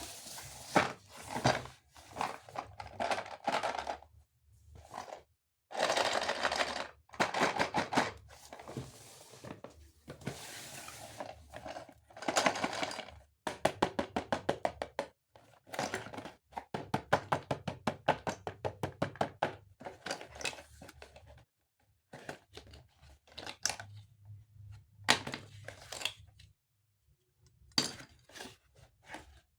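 Hard plastic toy pieces and packaging being handled: irregular clicks and knocks, short stretches of rustling, and a quick run of even clicking in the middle.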